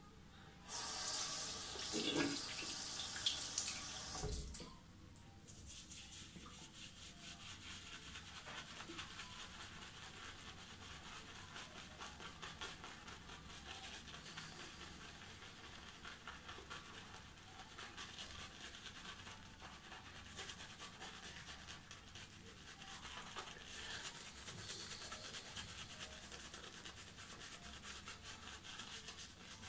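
Shaving brush scrubbing shaving-stick lather into a stubbly beard: a rapid, steady bristly swishing of quick back-and-forth strokes. A louder hiss fills the first four seconds or so.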